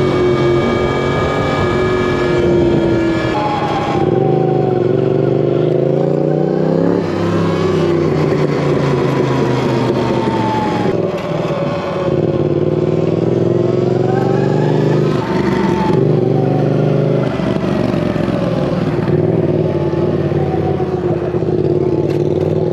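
Motorcycles riding, a Sur Ron X electric dirt bike and a Yamaha FZ-07: the motor pitch rises and falls several times as they speed up and slow down.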